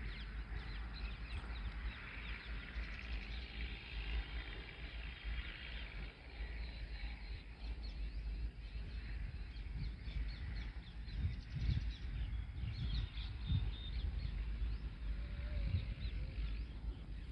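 Many small birds chirping and calling, busiest in the first few seconds, over an uneven low rumble.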